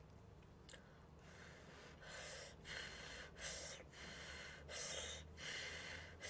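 Instant cup noodles being slurped off chopsticks in a run of quick sucking pulls, about six, starting faint about a second in and growing stronger.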